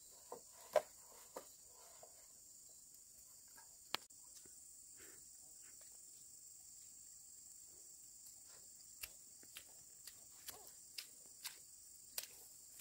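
Steady high-pitched insect chirring, with scattered short knocks: a sharp one about four seconds in, then a run of light knocks about twice a second near the end.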